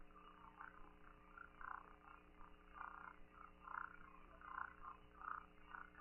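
Near silence in the broadcast audio between segments: a faint steady hum with faint, indistinct blips about once or twice a second.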